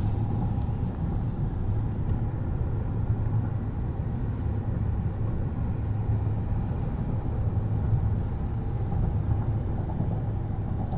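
Steady low road and drivetrain rumble inside the cabin of a 2019 GMC Yukon XL Denali cruising smoothly, with a faint steady hum above it.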